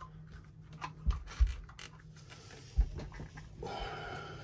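Fuel injectors being pressed into the intake manifold ports of a Volvo Penta marine engine by hand: a few short dull knocks and small clicks as they seat, then a brief rubbing scrape near the end.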